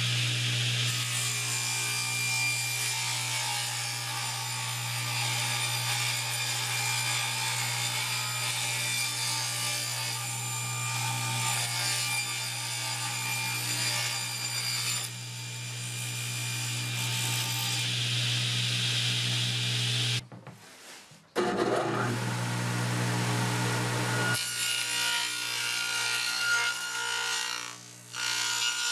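Table saw cutting plywood: a steady motor hum under the hiss of the blade going through the sheet. The sound breaks off abruptly for about a second two-thirds of the way through, then the cutting carries on.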